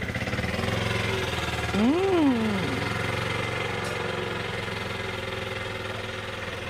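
An engine running steadily with an even pulsing drone, and a short pitched call that rises and then falls about two seconds in.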